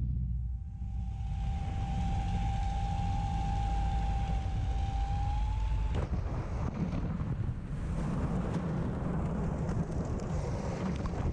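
A P-51 Mustang touching down in a crop field after a partial engine failure: low rumble and wind in the cockpit with a steady high tone for about six seconds, then a sudden impact at touchdown. Rough scraping and thrashing follow as the aircraft slides through the crop, with grass and debris ticking through the cockpit near the end.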